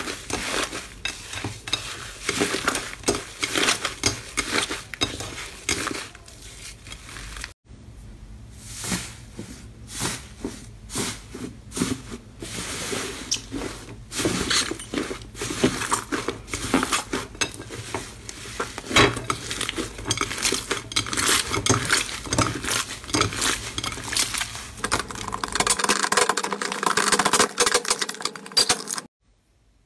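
Slime being kneaded, squeezed and pulled by hand in a glass bowl: a dense run of small sticky clicks and crackles as air pockets pop. The sound drops out briefly a quarter of the way in and stops just before the end.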